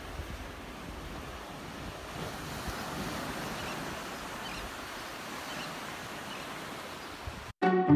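Waves washing on a sandy beach with wind on the microphone, a steady noise that cuts off suddenly near the end.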